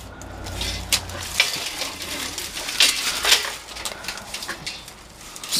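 Thin aluminum mini-blind slats clattering and clinking as they are pulled and worked loose from the blind, the slats stuck together. Irregular light clicks and rattles, a few sharper clinks about a second in and around three seconds in.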